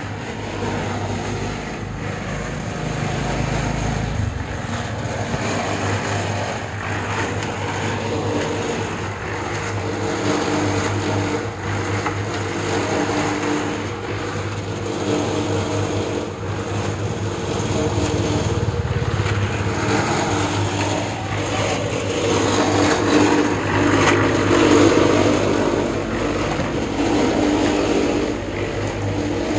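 Engine running steadily with a low hum whose pitch shifts now and then, growing louder for a few seconds past the middle.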